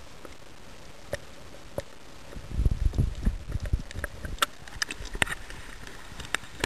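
Seawater sloshing and churning around a camera as it is lifted out of shallow reef water. A couple of sharp clicks come first, then a burst of low churning about two and a half seconds in, and then splashes and clicks as the camera breaks the surface.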